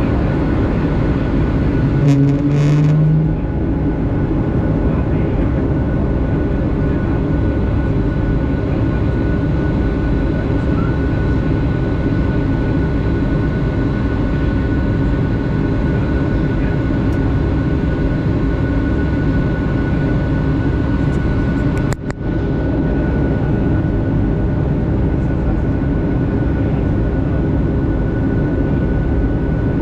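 Steady cabin noise of a Boeing 757 in climb: the engines' drone and the rush of air, with a steady hum running through it. There is a short low tone about two seconds in, and a brief click with a momentary drop in the noise a little over twenty seconds in.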